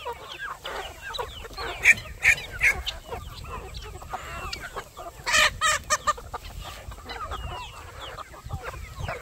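A flock of chickens clucking and chattering close by, many short overlapping calls, with a few louder sharp squawks about two seconds in and again around five and a half to six seconds.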